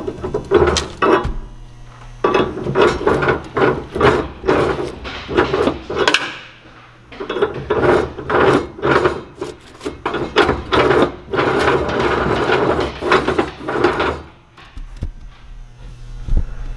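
Shelter 2600 wood furnace's ash-grate crank being worked back and forth, the grate scraping and rasping through the ashes in rapid repeated strokes to shake them down, with a short lull about halfway. The scraping stops a couple of seconds before the end.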